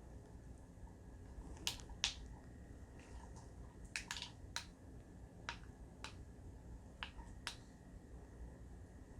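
A scattered series of about nine sharp, faint clicks and taps from handling a tactical flashlight mounted on an AK-type pistol, the loudest about two seconds in.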